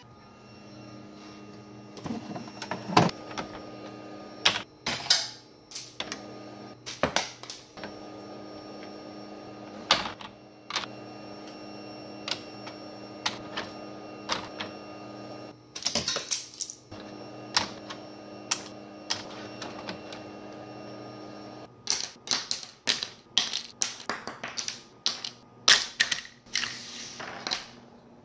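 Laser-cut parts clicking and clattering as they are picked out of a laser cutter's metal honeycomb bed and set down, over a steady machine hum. The hum stops about 22 seconds in, and the last several seconds are a quick run of sharp clicks.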